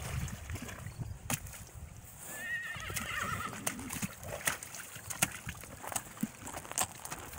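Horse's hooves stepping through a shallow water obstacle and onto gravel, a scatter of sharp footfalls. About two seconds in, a horse whinnies once, a wavering call lasting about a second and a half.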